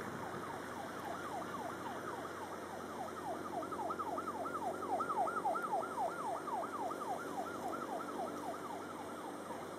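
A distant electronic yelp siren, a rapid rising-and-falling wail repeating about four times a second, swelling to its loudest midway and fading out near the end.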